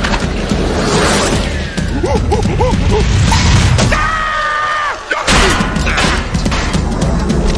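Cartoon slapstick sound effects: thuds, whacks and crashes over busy music. A quick run of warbling chirps comes about two seconds in, and a short held tone follows at about four seconds, before a sharp break just after five seconds.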